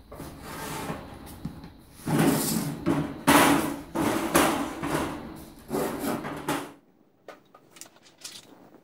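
A large painted panel rubbed and shifted on a work table by gloved hands: a run of scraping and rubbing noises in uneven bursts that cuts off suddenly near the end, followed by a few faint ticks.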